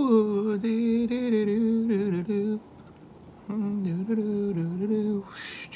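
A man humming a short tune in two phrases, with a pause of about a second between them.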